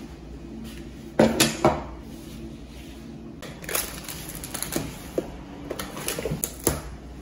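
Kitchenware being handled and set down on a wooden table: plastic food containers, dishes and a plastic cutting board knocking against it. Three sharp knocks come close together about a second in, followed by lighter clicks and taps later on.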